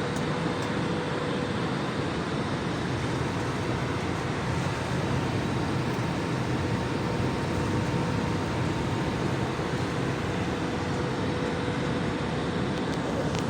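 Steady cabin noise inside a Boeing 737 airliner: an even rush of engine and air noise with a faint constant hum running through it.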